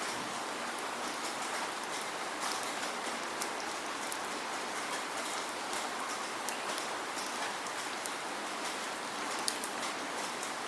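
Steady rain falling, with a dense even hiss and scattered individual drops ticking sharply on a hard surface. No thunder.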